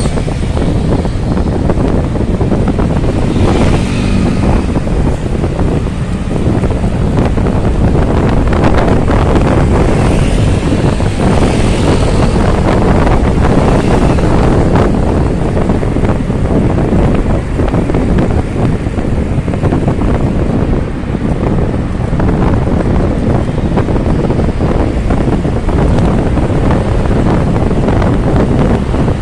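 Steady wind rushing over the microphone of a moving rider, with road and traffic noise underneath.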